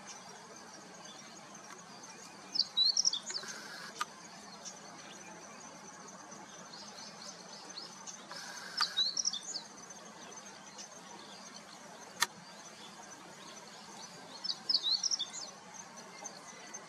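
Male meadow bunting singing: three short phrases of quick, clear notes, about six seconds apart.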